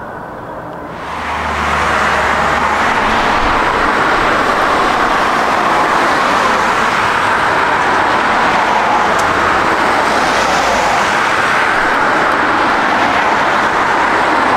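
Jet airliner engine noise, loud and steady, coming in sharply about a second in.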